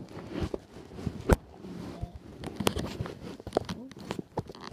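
Handling noise from a phone camera being touched and moved on a bed: a string of irregular knocks and clicks from fingers on the device, the loudest a little over a second in, over a soft rustling of bedding.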